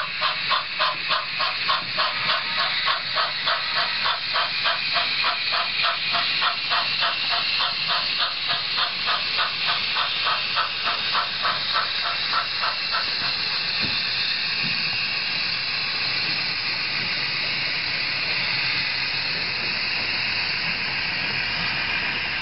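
Shay geared steam locomotive sound from the model train: rhythmic exhaust chuffs, about two a second, that stop about thirteen seconds in and leave a steady steam hiss as the locomotive descends.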